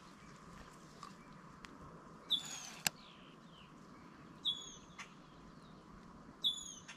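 A bird calling three times, a short, high, downward-slurred note about every two seconds, with a few faint sharp clicks in between.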